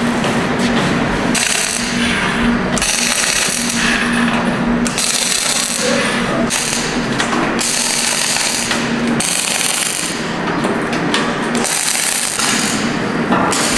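Wire-feed (MIG) arc welding on steel plate: the arc crackles and sizzles in a series of bursts a second or two long, starting and stopping as the seam is welded in stretches, over a steady low hum.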